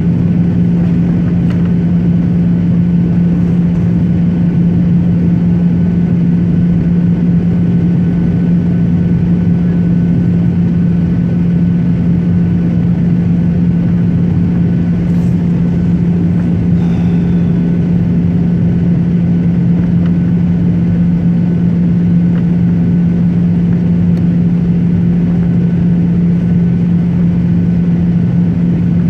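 An airliner's engines heard from inside the passenger cabin as a steady drone with a constant low hum.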